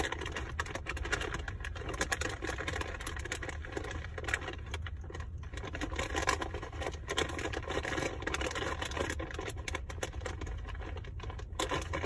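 African grey parrot crunching an almond held in its foot, a dense run of small irregular cracks and clicks of beak on nut, over a steady low rumble.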